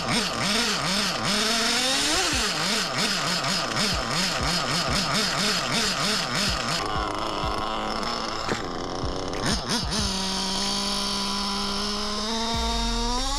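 Small HOBBYTECH B213 nitro engine running in an RC buggy. For the first several seconds its revs swing rapidly up and down with a rattle of clicks. About ten seconds in it settles to a steady idle, then revs up near the end.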